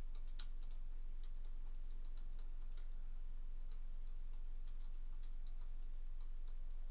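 Light, irregular clicks, two or three a second, over a steady low electrical hum.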